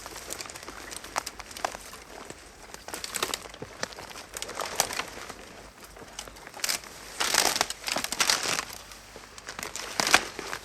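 Footsteps walking through undergrowth, the vegetation rustling and crackling underfoot in irregular steps, loudest in a long flurry about seven to eight and a half seconds in.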